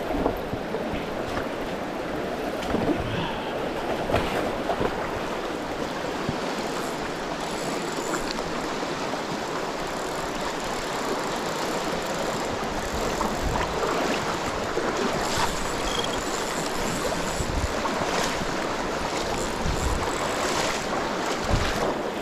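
River current rushing steadily around a wading angler, with a few short knocks and low rumbles on the chest-mounted camera.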